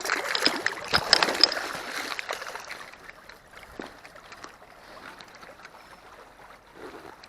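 A trout thrashing and splashing at the water's surface for about three seconds, many sharp splashes close together, as it struggles free. Then the quieter, steady rush of the stream.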